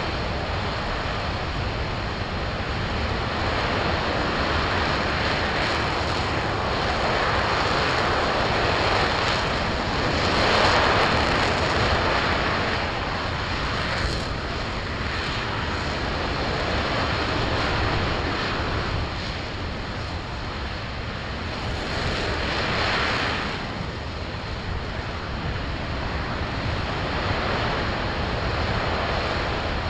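RS-25 liquid-hydrogen and liquid-oxygen rocket engine running at steady thrust during a long-duration hot-fire test: a continuous rushing noise that swells twice, about a third of the way in and again about three quarters of the way in.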